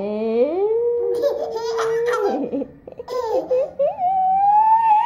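Baby squealing and babbling in long, sliding high-pitched calls, laughing at times, with a short pause around the middle.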